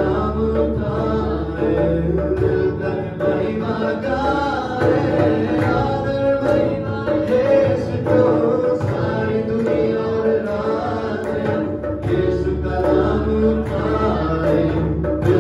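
A man sings a Hindi-Urdu devotional song through a microphone and PA, with electronic keyboard accompaniment under the voice.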